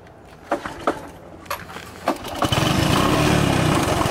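A few sharp crackles of dry leaves and twigs, then about two and a half seconds in the small engine of a red mini three-wheeler comes in loud, close by, and runs steadily.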